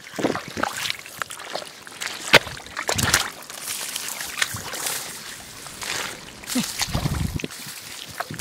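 Shallow muddy water sloshing and splashing as bare feet wade and hands grope through it, in irregular, uneven splashes.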